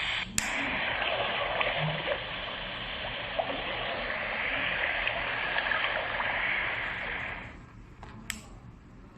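Portable white noise machine playing a steady rushing, stream-like noise through its small speaker. A sharp click about half a second in, after which the sound changes slightly; the noise stops about 7.5 seconds in, followed by another click.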